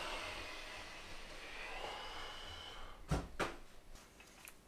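A person breathing audibly, with two sharp clicks about three seconds in.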